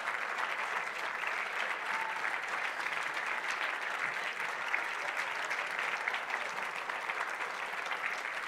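A congregation applauding: steady clapping from many hands.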